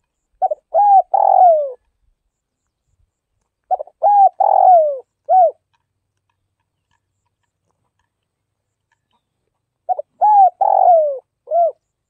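Spotted dove cooing: three phrases a few seconds apart, each a few short notes with one longer coo that falls in pitch.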